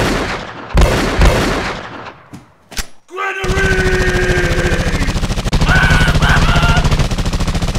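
Movie-style gunshot effects: a few loud single shots in the first second and a half, then from about three and a half seconds in, continuous rapid automatic rifle fire with a man yelling over it.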